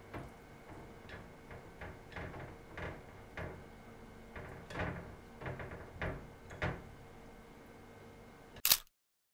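Light clicks and soft knocks of chopsticks and fingers against a small ceramic dish as pickled eggplant and herbs are placed in it, about fifteen taps spread irregularly, then one short loud knock near the end before the sound cuts off.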